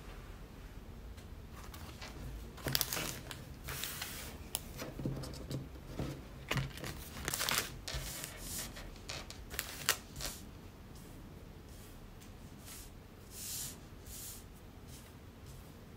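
Stiff printed mats being handled and set down on a wooden tabletop: scattered short rustles and light taps, busiest in the first ten seconds, then a few soft swishes as they are slid into place.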